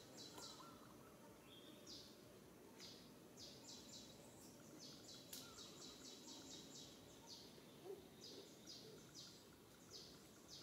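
Faint outdoor ambience near silence: a low background hiss with a run of short, high-pitched chirps, quickest in the middle at about four a second.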